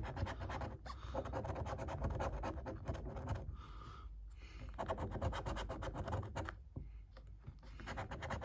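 A coin scraping the scratch-off coating from a paper lottery scratchcard in quick back-and-forth strokes, with two short pauses partway through.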